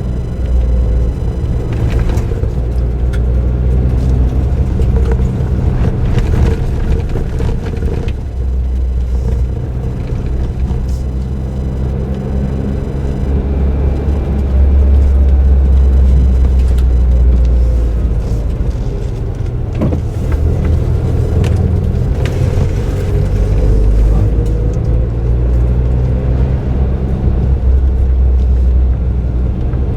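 Suzuki Jimny JB23W's 660 cc turbocharged three-cylinder engine, fitted with an aftermarket muffler, running under way with road noise, heard from on board. It makes a steady low drone whose pitch shifts a little as the revs change, with a few light knocks along the way.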